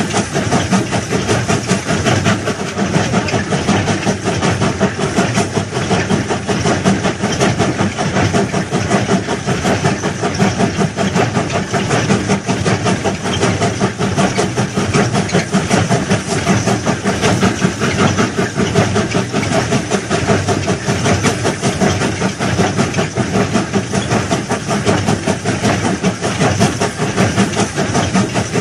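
Railway track-laying machine running steadily, a continuous mechanical din without pauses.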